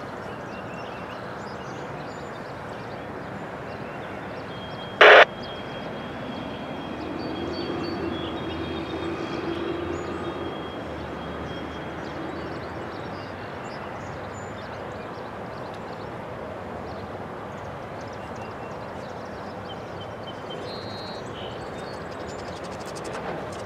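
Distant Norfolk Southern freight train approaching, a faint steady rumble under an even outdoor hiss, with thin high chirps scattered through. A brief very loud burst comes about five seconds in, and a low hum swells and fades between about seven and thirteen seconds.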